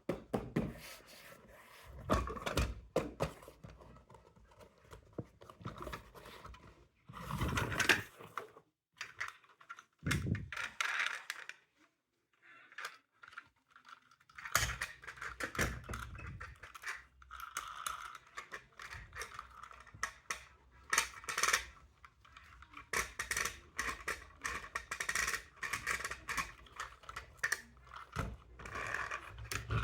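Irregular clatter of knocks, clicks and scrapes, broken by a silence of about two seconds near the middle.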